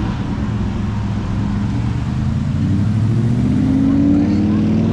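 Aston Martin Vantage sports car engine accelerating past close by, its pitch rising through the second half and loudest near the end, over a steady low hum of other traffic.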